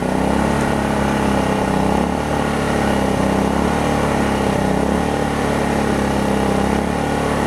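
Predator inverter generator's small single-cylinder four-stroke engine running steadily at idle under light load, its hum holding even.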